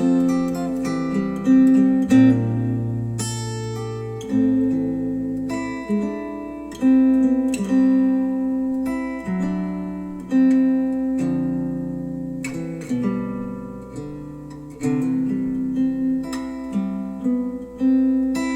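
Instrumental acoustic guitar music, plucked notes and strummed chords each ringing and dying away, played back through Wharfedale Denton 80th bookshelf speakers driven by a NAD C 338 integrated amplifier.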